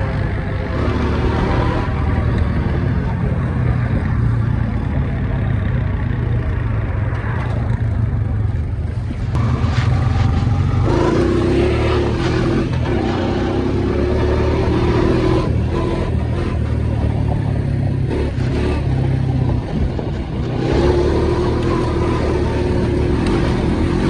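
ATV engine running under throttle while riding a muddy trail. A higher steady whine comes in about eleven seconds in and again near the end.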